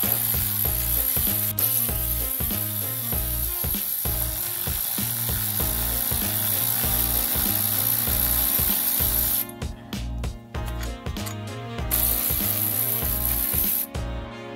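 Ratchet wrench clicking in quick runs while bolts are worked off a Jeep's underside, over background music with a steady beat.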